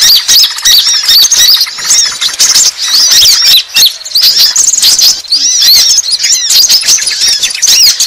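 Konin sunbirds singing: a dense, unbroken run of fast, high, sharp chirps and trills from several birds overlapping. This is a bird-lure (pikat) recording made to draw konin in.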